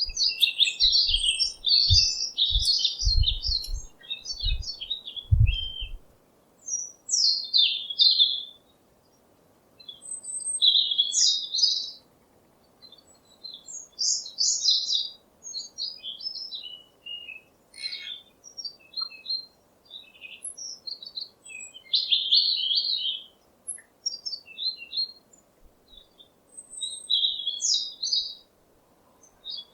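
Songbirds chirping and twittering in short bursts of high notes, with brief pauses between bursts. A series of low thumps runs under the chirps for the first six seconds.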